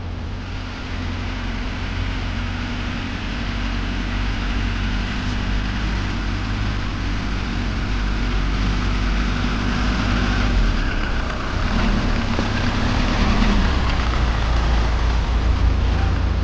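Engine of a miniature tractor-style construction machine running steadily, with a deep hum and a slight wavering in pitch.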